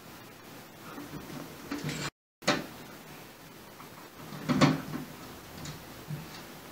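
Irregular knocks and bumps as black squirrels move about in clear plastic suction-cup feeders on a window pane. The loudest is a thump about four and a half seconds in. The sound cuts out briefly near two seconds in.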